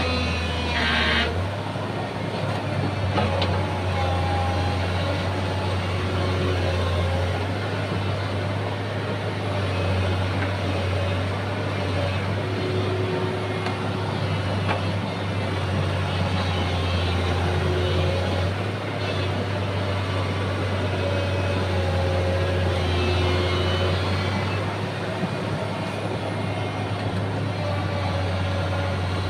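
Excavator's diesel engine running steadily while working, its note shifting slightly with load.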